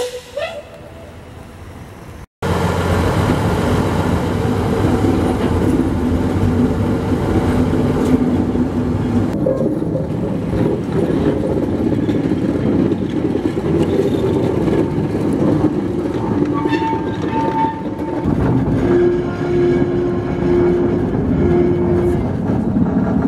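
Small diesel shunting locomotive running as it moves along the track with a brake van: a loud, steady engine drone with a heavy low rumble, starting abruptly about two seconds in.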